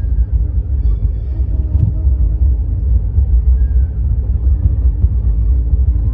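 Loud, steady low rumble, with faint music playing over it.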